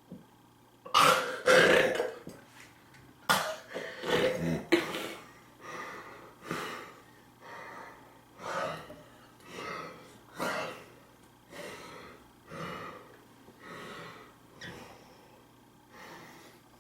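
A man burping loudly a few times after drinking fizzy makgeolli, followed by a run of fainter, breathy throat sounds about once a second that fade away.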